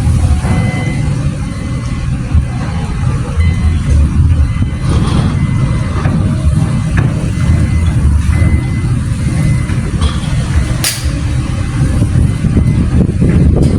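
Low, rumbling vehicle noise that fluctuates throughout, with a single sharp click about eleven seconds in.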